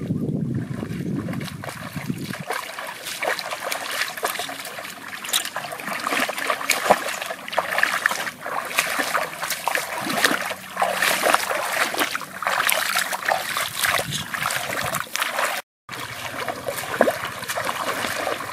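Shallow muddy water sloshing and splashing as feet wade through it and a long-handled metal fork is pushed through the water, a dense run of small irregular splashes. A low rumble of wind on the microphone in the first two seconds, and the sound drops out for an instant about three-quarters of the way through.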